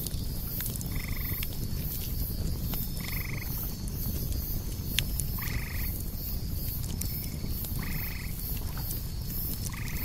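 Campfire crackling over a low steady rush, with cicadas buzzing high in about three pulses a second. An animal gives a short call five times, about every two seconds.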